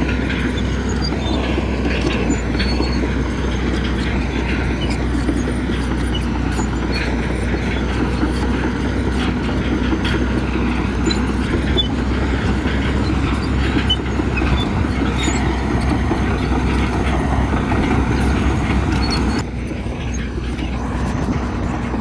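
Crawler bulldozer running under load, its diesel engine drone mixed with the steady clatter and rattle of its steel tracks. The sound thins out suddenly near the end.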